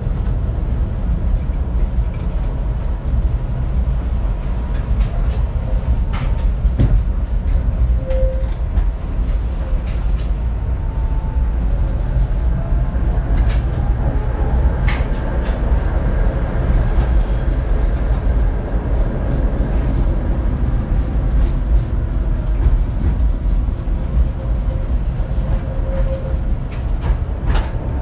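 Inside a moving Tatra tram: a steady low rumble of wheels and running gear, with a few sharp clicks and brief faint squeals along the way.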